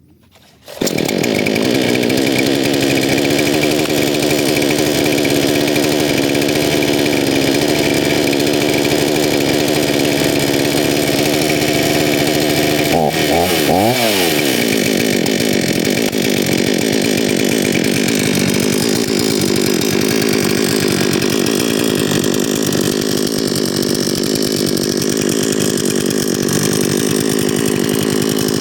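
Parkside chainsaw running at a steady pitch from about a second in. About halfway through its pitch swings briefly up and down, and the sound then turns rougher.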